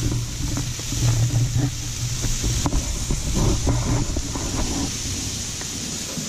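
Marinated tuna steaks sizzling on the grate of a hot charcoal grill, a steady hiss over a low rumble.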